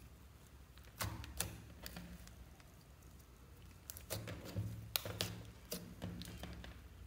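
White slime being pressed and squished by fingers, giving sticky clicks and crackling pops. They come in two bursts: about a second in, and again from about four seconds to six seconds.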